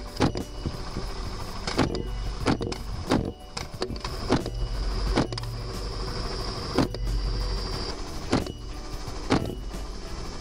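Helicopter engine and rotor running with a steady drone, broken by about nine sharp cracks at uneven intervals a second or so apart: rifle shots fired from the helicopter at hogs.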